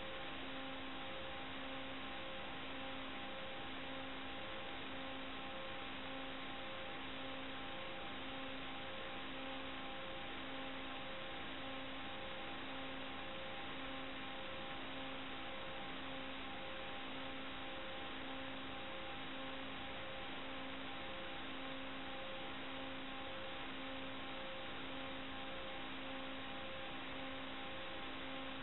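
Steady radio-receiver hiss, narrow in band, with a low tone pulsing on and off about every second and a half and two faint higher tones held steady underneath.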